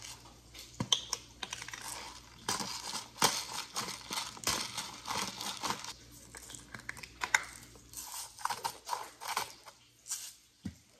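Handheld spice grinder twisted by hand in short bursts, a dry crackling rattle of peppercorns and salt being cracked over a tomato slice.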